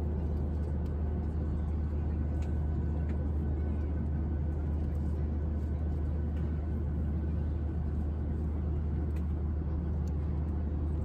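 Steady low drone inside the cabin of a Boeing 737-800 jet airliner with its engines running, a deep hum under an even rush of noise, unchanging throughout.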